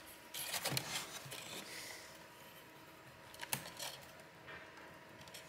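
Plastic laptop screen bezel being pulled and worked loose by hand: faint rubbing and scraping of plastic against the display panel, with a small sharp click about three and a half seconds in.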